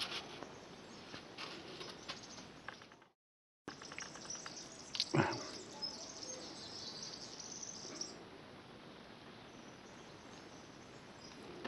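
Outdoor ambience of footsteps on sandy gravel with faint bird chirps. The sound drops out briefly about three seconds in, and a single louder thump comes about five seconds in.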